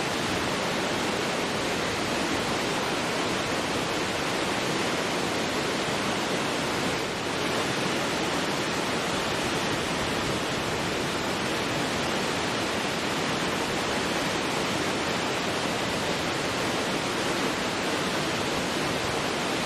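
A large waterfall pouring: a steady, dense rush of falling water that holds unchanged throughout.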